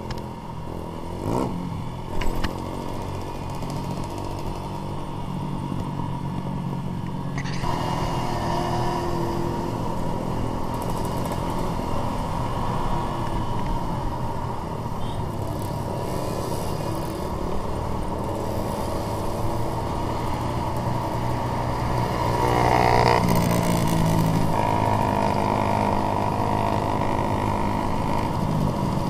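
Trail motorcycle engine running while riding, steady with the throttle opening up about a quarter of the way in and again louder a little past three quarters of the way. A couple of sharp knocks about two seconds in.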